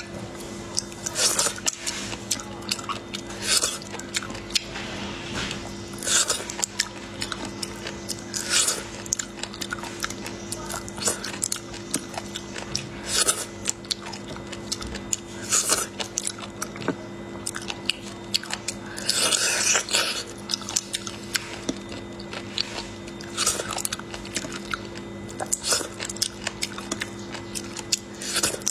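Close-up eating of small snails in their shells: a sharp sucking slurp about every two seconds as the meat is drawn out, with chewing and small clicks of shells against a ceramic bowl. A faint steady low hum runs underneath.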